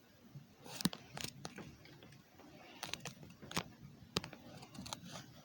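Scattered light clicks and knocks at irregular times, like objects being handled, with the sharpest ones about a second in and past the middle.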